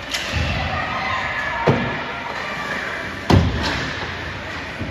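Sharp slams and thuds echoing around a large hall, the loudest about three seconds in, over a steady background of crowd noise.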